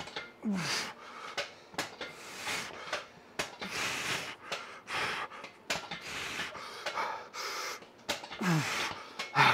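A person breathing hard in heavy, rushing breaths, with a short falling grunt near the start and another near the end. A few sharp knocks sound among the breaths.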